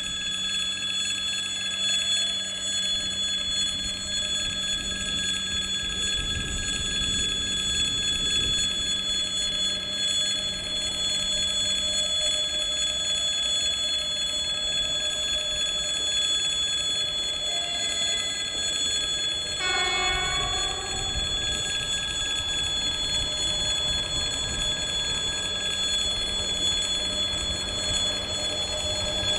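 Level-crossing warning signal ringing steadily while a freight train rolls through the crossing with a continuous rumble of wagons on the rails. About two-thirds of the way through, a brief pitched blast sounds over it for about a second and a half.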